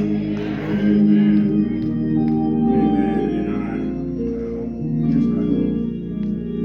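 Organ playing sustained chords that shift every second or two, church-service fill music between a prayer and the next speaker.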